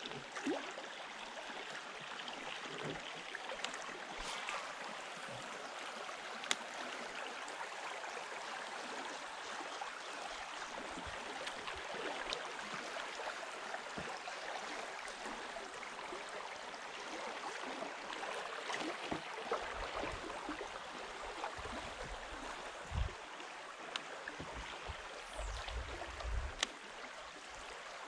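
Small river flowing steadily over shallow riffles around a kayak, with a few light clicks and some dull low knocks in the last third.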